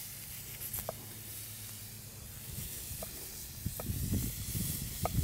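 A chef's knife cutting lengthwise through a grilled corn cob against a wooden cutting board. It makes a few light taps early on, then a denser run of scraping, knocking cuts from about three and a half seconds in, over a steady background hiss.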